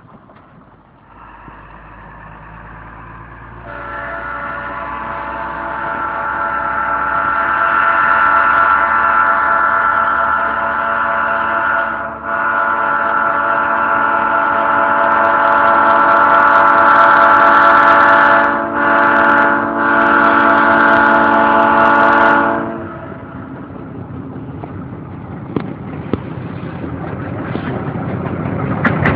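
Diesel locomotive air horn sounding a multi-note chord that grows louder as the train approaches: two long blasts, a short one, then a last long one, the pattern sounded for a level crossing. After the horn, the engine and wheels rumble louder and louder as the locomotive draws near.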